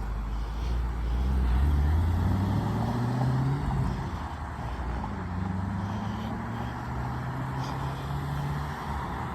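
Motor vehicle engine accelerating past, its pitch climbing, then dropping back after a gear change about halfway through and climbing again.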